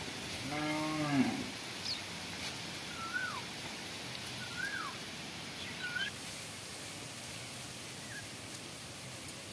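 A cow gives one short, low moo about a second in. Several brief bird chirps follow, spaced out across the next few seconds.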